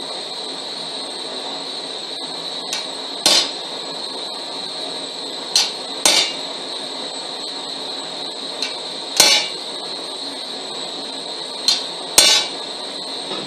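Hammer blows on a glowing length of ribbed steel rebar on an anvil, struck in pairs: a lighter tap, then a heavier ringing blow about half a second later. Four pairs come roughly every three seconds over a steady hiss.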